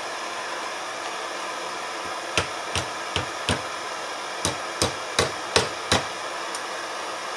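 Hammer striking a hot nail against the edge of a small cast-iron hobby anvil, about nine sharp metal-on-metal blows in two quick runs, trying to cut off the nail's tip.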